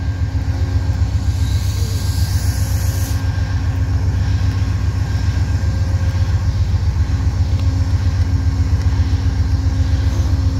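Amtrak GE P42DC diesel locomotive idling with the train stopped: a steady deep engine drone with a few steady tones above it. A brief high hiss comes about a second in.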